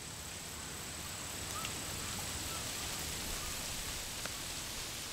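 Steady hiss with a thin, faint high whine and a couple of faint clicks, no voice: the background noise of an old archival film soundtrack.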